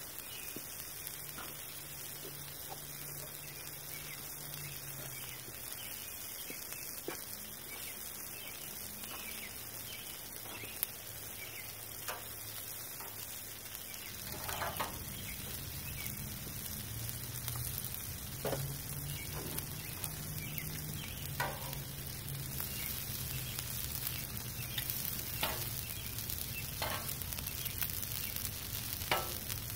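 Noodles and sliced peppers and onions sizzling on a Blackstone flat-top griddle. The frying gets louder about halfway through, and sharp clicks of metal tongs against the griddle come more often as the noodles are lifted and turned.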